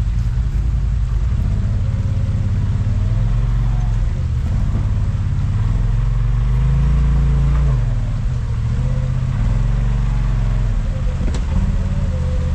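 Side-by-side UTV engine crawling a rock trail, revving up about halfway through and falling back off. A single sharp knock comes near the end.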